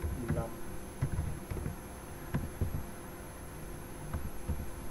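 Computer keyboard keystrokes: irregular soft clicks as a search term is typed, over a steady faint electrical hum.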